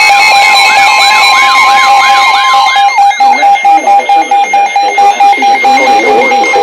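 Weather radio alert alarm tones sounding before a tornado warning. A steady high tone and a warbling chirp, repeating about three times a second, sound together. About three seconds in they stop, and a fast pulsing beep carries on.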